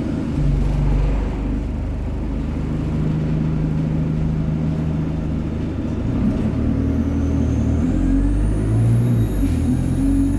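ADL Enviro 200 bus engine running under way, its low engine note shifting in steps as the Allison automatic gearbox changes gear. In the second half a high-pitched turbo whine rises and then falls away.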